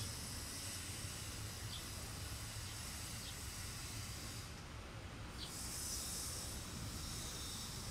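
Steady background hiss with a low rumble, and three faint short clicks of a hand screwdriver turning a screw on a backpack sprayer's engine.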